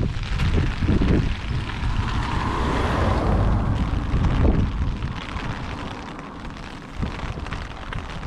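A car passes on the wet road, its tyres hissing on the wet surface, swelling and fading with the loudest point about three seconds in. Gusts of wind buffet the microphone.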